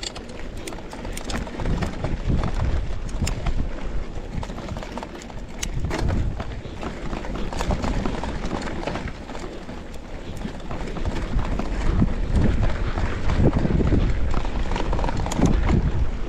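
Mountain bike rattling and knocking over a rough dirt trail, with wind rumbling on the microphone; the knocks come in uneven clusters, busier in the last few seconds.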